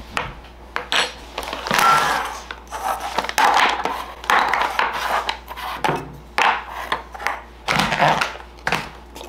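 Kitchen clatter of utensils and dishes: a spoon or scoop knocking and scraping against bowls in irregular bursts, as ingredients for oat protein balls are mixed and handled.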